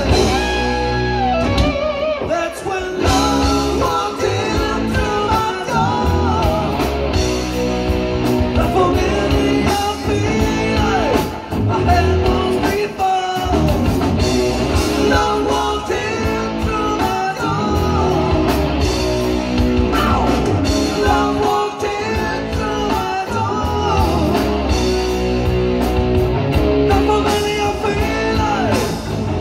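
Live rock band playing: electric guitars, bass guitar and drum kit, with sung vocals.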